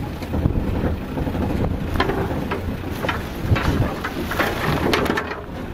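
A vehicle driving slowly over a rough dirt track, its low rumble mixed with wind buffeting the microphone, and a few sharp knocks and rattles from the bumpy ground.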